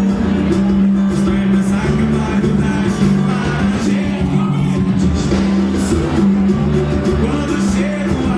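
Band music with a steady bass line and a regular percussion beat, with a voice singing over it.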